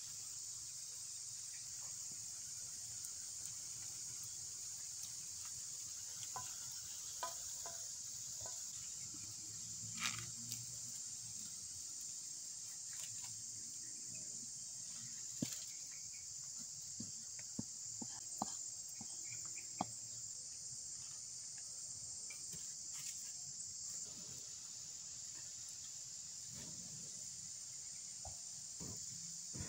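Steady high-pitched chorus of forest insects. A few sharp clicks and knocks from handling leaves and the pan break in through the middle.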